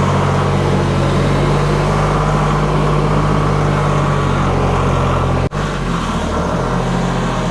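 Massey Ferguson tractor engine running steadily at a constant speed, with a brief break in the sound about five and a half seconds in.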